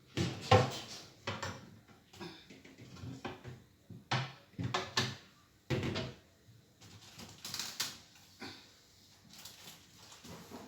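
Irregular knocks and clunks of containers and fridge parts being handled and set down, loudest about half a second in.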